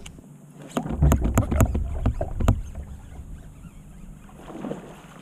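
A run of five or six sharp knocks and dull thumps on and around a kayak as rod and gear are handled, bunched in the first half, then only faint water and wind.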